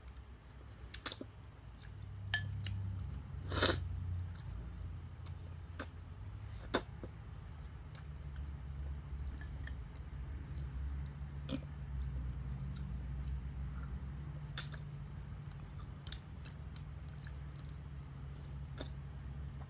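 A person eating ramen noodles close to the microphone: wet chewing, with one short slurp a few seconds in and scattered sharp clicks.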